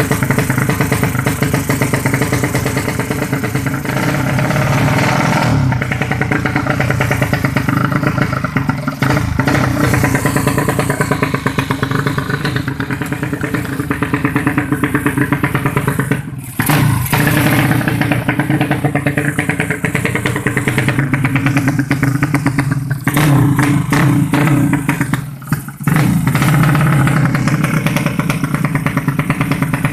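Tuned racing motorcycle engine running hard and steadily, cutting back briefly about halfway through and twice more near the end before picking up again.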